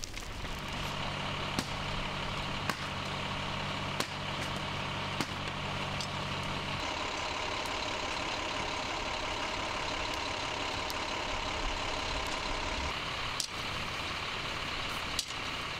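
Heavy engine running steadily, with a held whine over a low hum and sharp pops or clicks now and then; the low part of the hum drops away about seven seconds in.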